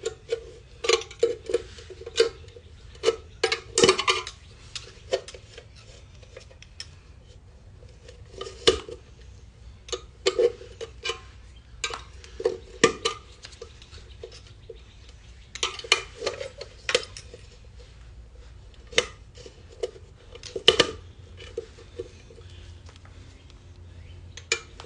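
Irregular clusters of sharp clicks and metallic clinks as a wheel center cap is pushed, turned and tapped against the alloy wheel's hub to line up its grooves and snap it in, with pauses between tries. The cap is not yet fully seated.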